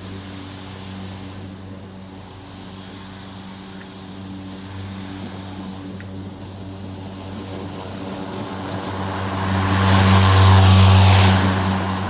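Lawn mower engine running at a steady pitch, growing louder over several seconds and peaking with a rushing hiss as it comes closest near the end, then easing off.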